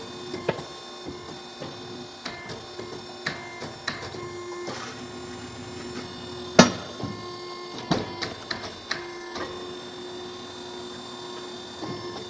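Large tire-changing machine running while an agricultural tire is mounted: a steady motor hum with irregular metallic clicks and clanks, and one loud bang about six and a half seconds in.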